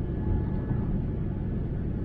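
Steady low rumble inside the cabin of a Boeing 787-9 climbing after takeoff: its GEnx engines running at climb power together with the rush of air over the fuselage, with a faint steady whine above it.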